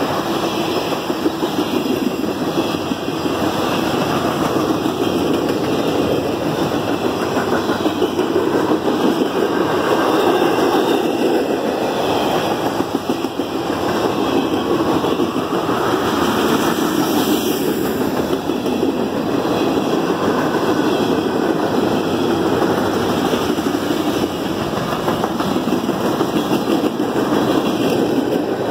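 Freight cars rolling past close by: a steady rumble and clatter of steel wheels on rail.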